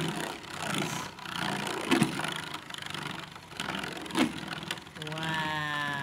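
Beyblade Judgement Joker top spinning in a Beyblade stadium: a steady whirring, with several sharp clacks as it strikes the stadium. A drawn-out voice near the end.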